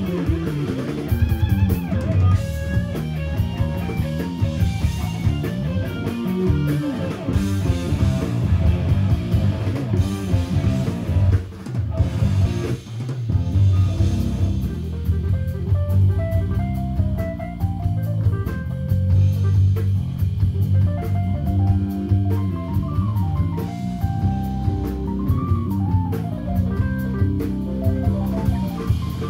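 Live instrumental rock band: an electric guitar plays lead lines over bass guitar, drum kit and keyboards. The guitar plays quick runs of notes in the first half, the band drops out briefly about twelve seconds in, then the guitar plays held and bending notes.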